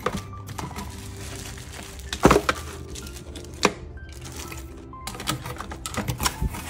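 Plastic zip-lock bags of small electrical parts rustling and clicking as they are handled in a cardboard box. A louder knock comes about two seconds in, and a flurry of clicks in the last second or two, over soft background music.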